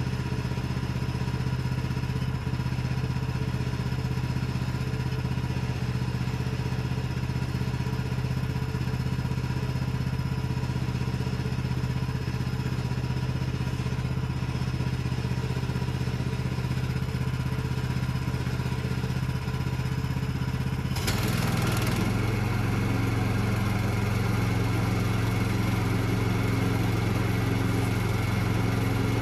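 An engine idling steadily. About two-thirds of the way through it turns abruptly louder and harsher, with more hiss, and then runs on steadily.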